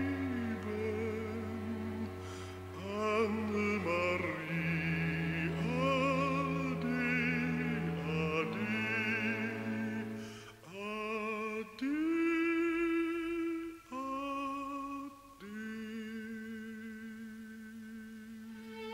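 Baritone voice singing a slow German folk-style song with wide vibrato over sustained accompaniment. In the second half come long held notes with short breaks between them.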